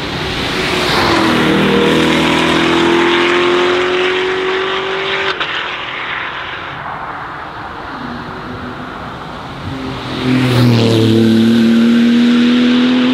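Two performance cars accelerating hard past one after the other, each engine note rising as it pulls. The second pass, starting about ten seconds in, is the louder.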